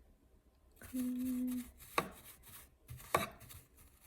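Small brush working in the metal bobbin and hook area of a Cub 4 sewing machine to clear lint: light scratchy strokes with two sharp clicks about a second apart.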